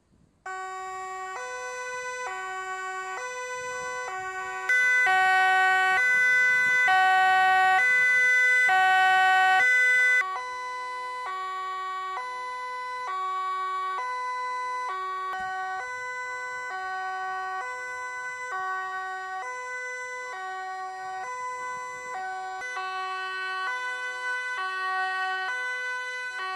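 Dutch police cars' two-tone sirens sounding together, alternating evenly between a low and a high note. One siren is much louder between about five and ten seconds in.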